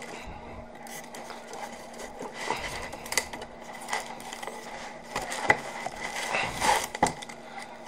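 Cardboard box and packing being handled: scattered knocks, scrapes and rustles as the contents are pulled out, with a sharper knock about five and a half seconds in.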